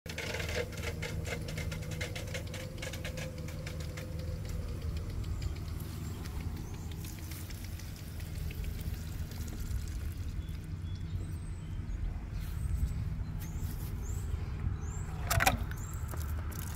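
Light rustling and clicking as a kitten moves through dry straw mulch and around a coiled garden hose, over a steady low rumble, with one sharp louder click near the end.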